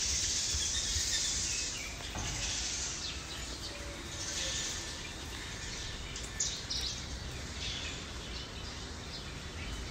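Background ambience: a hiss that swells and fades, with birds chirping. There is a sharp click about six and a half seconds in.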